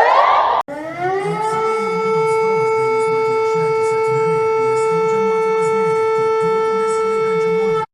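Warning sirens: the end of a siren wailing upward about once a second, then after a short break a civil defense siren winds up for about a second and holds one steady tone, cutting off abruptly near the end.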